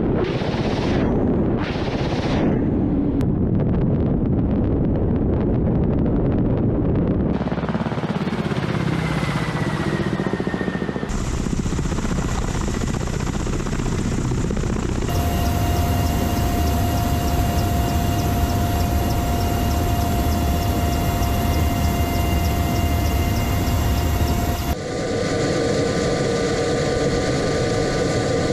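Attack helicopters' rotors and turbine engines running across several shots, opening with a quick series of unguided rockets fired from a Ka-52's wing rocket pod. The later shots carry a steady high turbine whine over the rotor noise.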